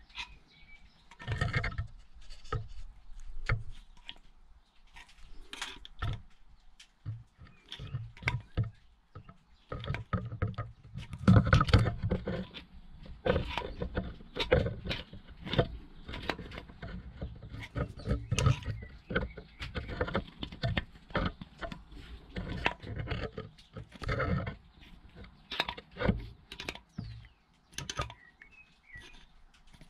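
Screwdriver prying the rubber impeller out of a Bukh DV10 diesel's raw-water pump housing: irregular metal scrapes, clicks and knocks, loudest about a third of the way through.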